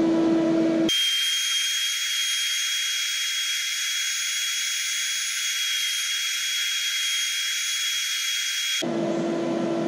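Mosquito Magnet Patriot Plus blower fan running steadily with a low hum while the trap tries to light. About a second in, the hum drops away abruptly, leaving only a steady hiss with a thin high whine. The hum comes back about a second before the end.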